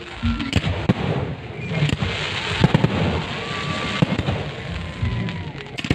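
Aerial firework shells bursting, a dense run of sharp bangs and crackling stars one after another.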